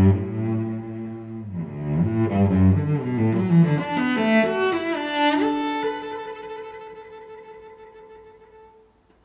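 Background instrumental music, low and string-like, playing a melody that ends on long held notes fading out over the last few seconds.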